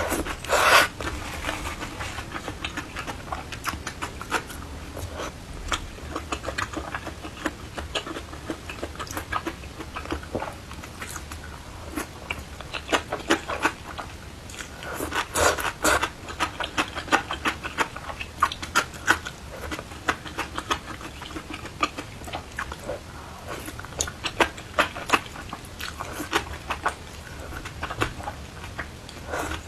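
A person eating: chewing and biting food, with clusters of sharp clicks and crunches coming in bouts every few seconds.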